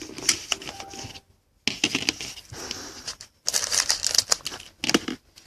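Foil wrapper of a football trading card pack being torn open and crinkled by hand, in several spells with two short pauses.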